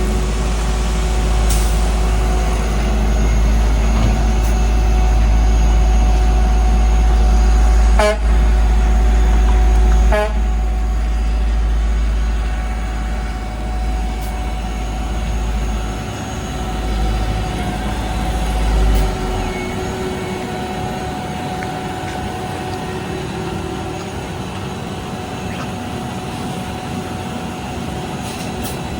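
Heavy road-paving machinery running with a deep, steady engine rumble that drops away about two-thirds of the way through. Two short, sharp pitched sounds come about two seconds apart near the middle.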